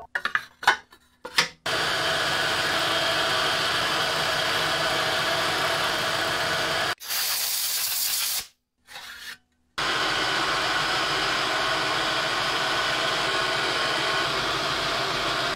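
Milling machine spindle running with an end mill cutting into metal: a steady whirring cutting noise. A few light knocks come first as the workpiece is set in the vise, and about halfway through the cutting breaks off in a short brighter hiss and a brief pause before it goes on steadily again.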